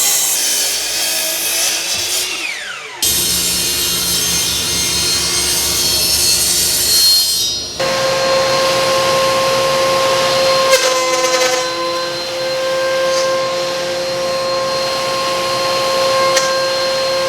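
Woodshop power tools milling old oak boards into half-inch blanks, in several edited clips. First a motor winds down with a falling whine, then a rhythmic cutting run, then a machine such as a thickness planer running steadily with a constant high hum.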